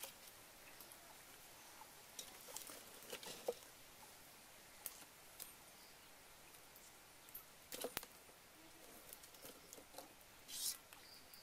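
Faint, scattered crackles and ticks from a wood fire burning in a clay stove under a wok, with a sharper click about eight seconds in and a brief rustle near the end as sticks of firewood are handled.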